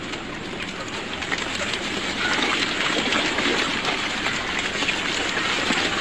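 Hooves of a large flock of sheep trotting on a gravel track, a dense crackling patter that grows louder over the first two seconds or so.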